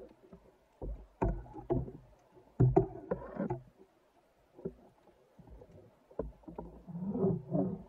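Underwater knocks and scraping as a speared European sea bass is handled on the steel spear shaft beside a wooden speargun, in irregular clusters with a louder burst of knocking about two and a half seconds in and another near the end.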